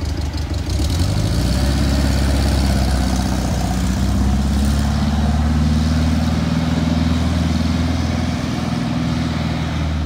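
Air-cooled flat-four engine of a classic Volkswagen Beetle running as the car drives off down the street. It gets louder about a second in as it pulls away, then holds steady.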